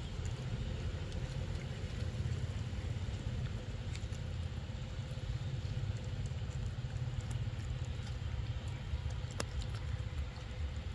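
Steady low rumble of wind buffeting the microphone, with a few faint scattered clicks from a long-tailed macaque chewing mango at close range.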